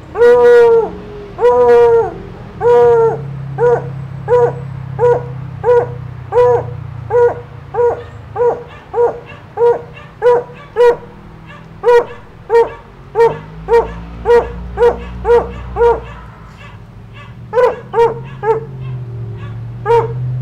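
A dog barking repeatedly in a steady rhythm, about one and a half barks a second. The first few barks are longer, falling calls. The barking stops for a few seconds past the middle and starts again near the end.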